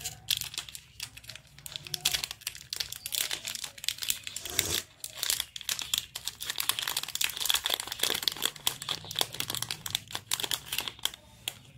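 Foil-lined wrapper of a Cadbury 5 Star 3D chocolate bar crinkling and crackling as it is peeled open by hand, a close, dense run of small crackles and rustles.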